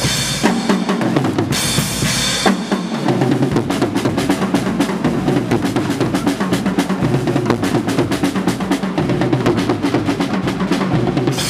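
Swiss carnival Guggenmusik band playing: a drum kit with bass drum, snare and cymbals keeps a dense, steady beat under sousaphones, trumpets and saxophones. A cymbal wash rings out about two seconds in.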